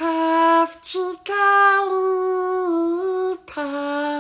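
A female voice holding wordless sung notes: four steady notes with short breaks between them. The second is brief, the third long with a slight dip in pitch about three quarters of the way through, and the last lower.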